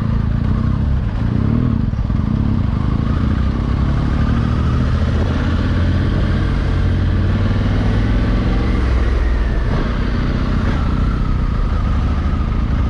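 Honda Africa Twin 1100's parallel-twin engine running steadily while the motorcycle is ridden.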